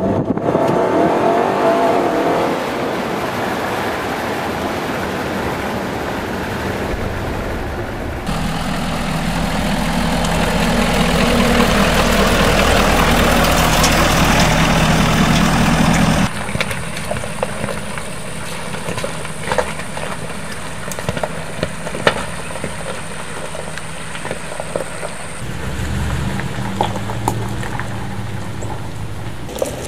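Trucks running over rough ground in a series of short shots, each with engine and tyre noise. First comes engine and road noise from inside a cab. From about eight seconds a louder, steady diesel runs close by, the Ford F-250 Super Duty's Power Stroke. After a cut around sixteen seconds it is quieter with scattered crackles, and a truck engine runs again near the end.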